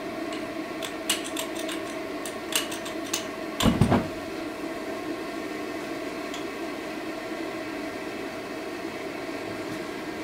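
A multi-burner gas forge is lit. Sharp metallic clicks come in the first three seconds, then a loud low whoomp about three and a half seconds in as the gas ignites, over a steady mechanical hum.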